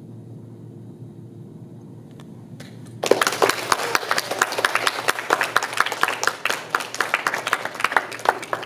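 A small audience clapping, starting suddenly about three seconds in and thinning out near the end, over a steady low room hum.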